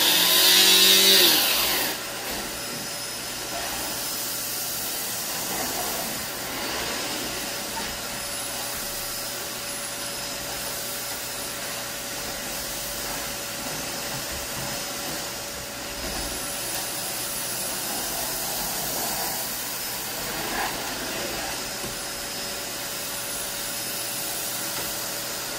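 Dyson DC21 Motorhead canister vacuum switched on, its motor coming up to speed with a rising whine and loudest in the first two seconds. It then runs steadily while its floor head is pushed over the hard floor, sucking up fine spilled particles.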